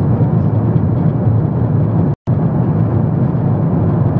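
Jet airliner cabin noise in flight: a steady low rumble of engines and airflow heard inside the cabin. It drops out completely for a moment about two seconds in.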